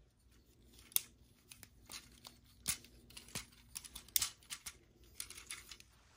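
Plastic parts of an Earthrise Optimus Prime action figure clicking and rubbing as its chest panels are opened out by hand, with a sharp click about a second in and several smaller clicks after.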